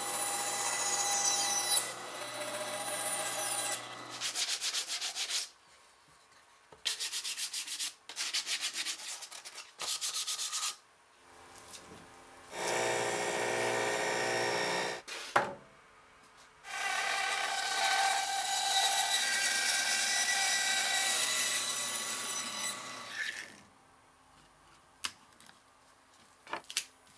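A series of woodshop cuts. A bandsaw trims box elder splines flush on a wooden box, then come bouts of quick rhythmic scraping strokes and a table saw cutting a cherry burl with a whining pitch, followed by a long steady saw cut. A few light clicks near the end.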